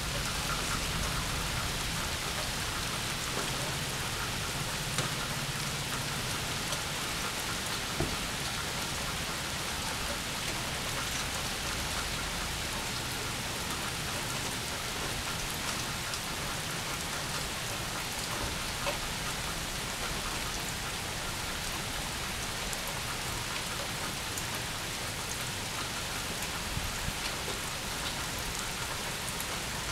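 Steady rain falling: an even hiss, with a few sharper drop ticks here and there.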